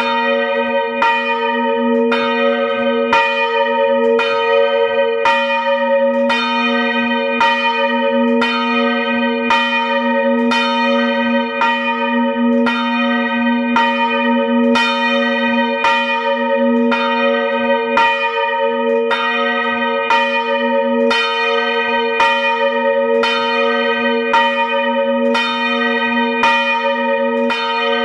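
Two swinging bronze church bells of about 450 kg and 380 kg, rung by hand with ropes, striking in a steady, even rhythm of about one stroke a second. Each bell's low hum rings on between strokes.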